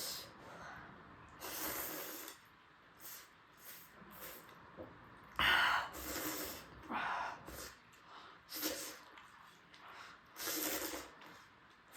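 Close-miked eating sounds: about five short, hissy slurps and sniffs of air while eating spicy momos and soupy noodles. The loudest comes a little before the middle.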